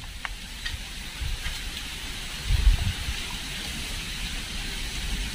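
A steady high hiss of outdoor background noise, with a few low bumps about two and a half seconds in.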